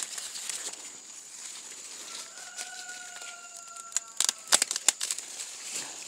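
Dry corn stalks and leaves rustling as an ear of corn is worked off the stalk, with a quick run of sharp cracks and snaps about four seconds in. A faint drawn-out tone sounds just before the snaps, over a steady high hiss.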